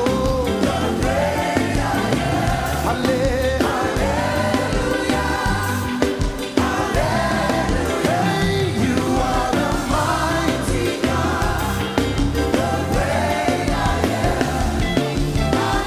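Live gospel worship music: sung melody with choir voices over a full band with bass and drums.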